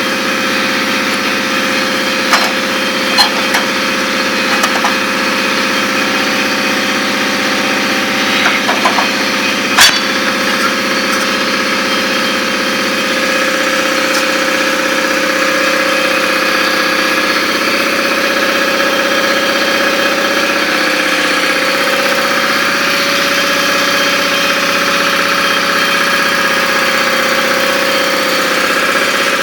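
A machine running steadily with a constant whining tone, with a few sharp clicks or knocks in the first third.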